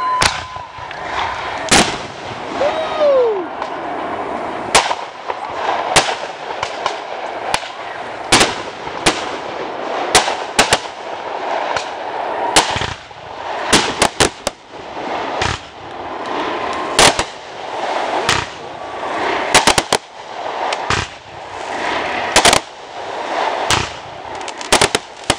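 Aerial fireworks going off one after another: sharp bangs every second or two, sometimes several in quick clusters, over a crackling hiss. A short falling whistle comes a few seconds in.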